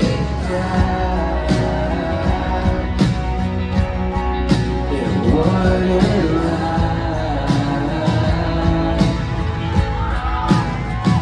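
Live rock band playing, with heavy drum hits about every second and a half under sustained instruments, and a voice singing in stretches.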